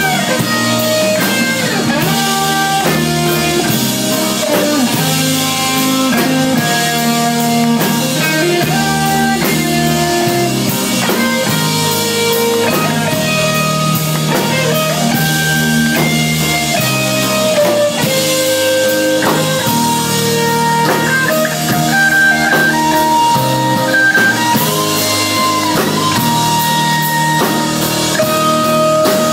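Live rock band playing loudly: electric and acoustic guitars over a drum kit.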